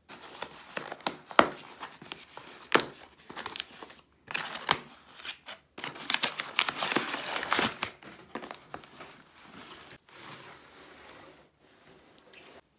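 A knife slitting packing tape on a cardboard shipping box, with scraping clicks, then the cardboard flaps pulled open and brown packing paper inside crinkled and rustled. It grows fainter near the end as the boxed kit is slid out.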